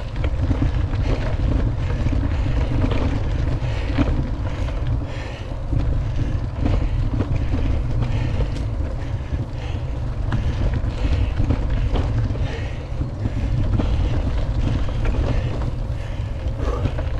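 Wind rumbling and buffeting on the microphone of a camera riding along on an e-bike, with a few faint knocks.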